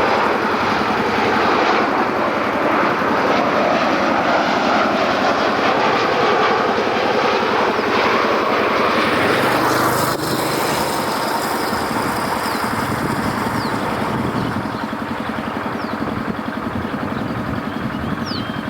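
Jet airliner engines heard as the plane passes on its landing approach: a loud, continuous rushing noise whose tone shifts about halfway through.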